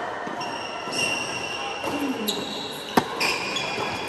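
Tennis ball struck by a racket during a rally, one sharp pop about three seconds in, with fainter ball hits and bounces and high squeaks around it.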